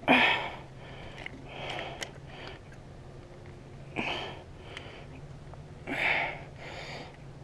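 A man sniffing and breathing hard through his nose in four short, noisy rushes about two seconds apart, the first the loudest, while he works at a stuck shell in an airsoft revolver. Small clicks from the gun's parts come between the breaths.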